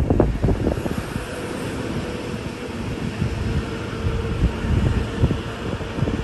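Wind buffeting the microphone over the steady hum of a vehicle, with a faint steady whine through the middle.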